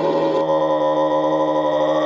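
Made-up creature sound effect: a long, steady, pitched growl-like drone with many overtones that changes abruptly about half a second in, as at an edit between two layered clips.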